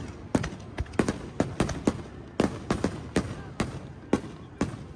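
Fireworks bursting in an irregular string of sharp bangs, two or three a second, that stops near the end.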